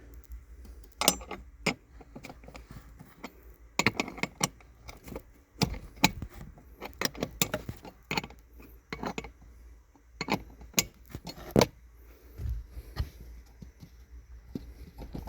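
Irregular clicks, taps and light rattles from hands undoing a fastener and handling the plastic trim and soundproofing panel under a car dashboard.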